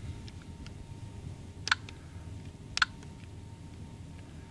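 Buttons on a LEGO Mindstorms EV3 brick being pressed to start its program: two sharp clicks about a second apart, with a couple of fainter clicks before them.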